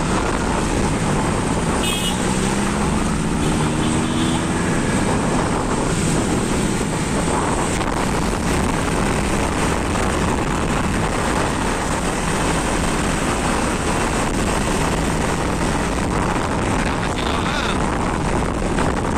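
Steady rushing wind buffeting the microphone of a moving camera, over road and traffic noise. An engine rises in pitch briefly about two to four seconds in.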